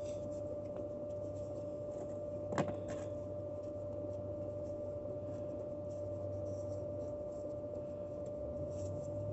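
Clothes dryer running to push air out through its vent: a steady hum with a constant whine and a rough, airy rustle. One sharp knock comes about two and a half seconds in.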